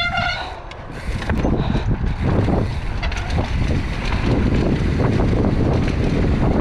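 Mountain bike running fast down a rough dirt and rock trail: tyres rumbling over the ground, with many small knocks and rattles from the bike, and wind buffeting the microphone.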